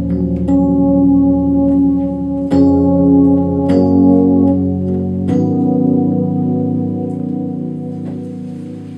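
Synthesizer keyboard played in held, sustained chords that change about four times, then a last chord that is held and fades away over the final few seconds.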